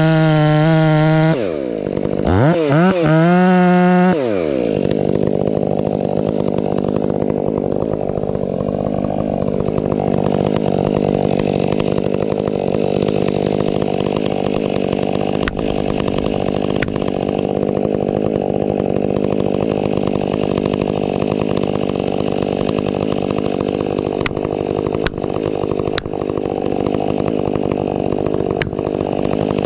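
Stihl MS 500i fuel-injected two-stroke chainsaw revved high twice, then pulled down to a steady lower pitch under load as it cuts into a ponderosa pine trunk.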